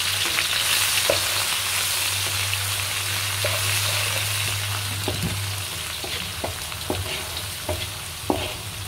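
Minced ginger, garlic and dried chillies sizzling in hot oil in a non-stick pan, the aromatics being sautéed. The sizzle gradually fades. From about halfway in, a wooden spatula stirs them with a series of short knocks and scrapes against the pan.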